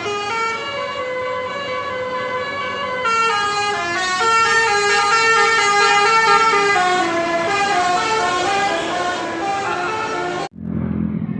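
Basuri 'telolet' multi-tone bus horn playing a melody, several notes sounding at once and stepping quickly from one pitch to the next. About ten and a half seconds in it cuts off abruptly to a bus engine's low rumble, and the horn's stepped notes start again.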